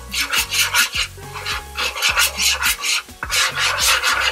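Background music with a steady beat of sharp ticks and deep bass notes, over a spoon scraping and stirring sauce in a frying pan.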